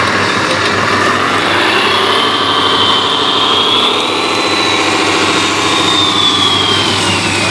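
Radio-controlled model machine running: a high electric motor whine that rises in pitch, holds, and falls away near the end, over a steady low hum.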